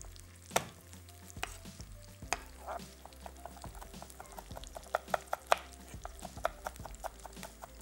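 Chef's knife chopping fresh garlic cloves on a wooden cutting board: a few separate knocks of the blade on the board, then a quicker run of chops in the second half.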